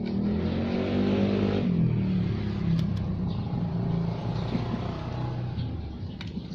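A motor vehicle's engine running close by and revving, its pitch rising and falling in steps, loudest in the first couple of seconds.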